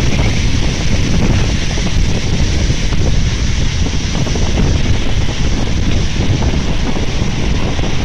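Strong wind buffeting the microphone in a steady low rumble, over the continuous rush of heavy storm surf breaking and washing up a shingle beach.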